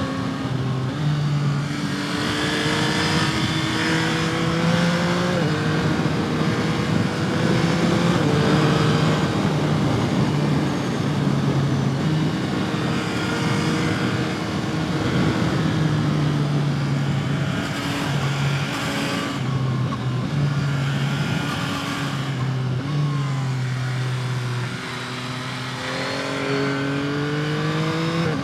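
Yamaha MT-09's three-cylinder engine under way, pulling up through the revs with several quick drops in pitch at gear changes and a climb again near the end, over steady wind rush.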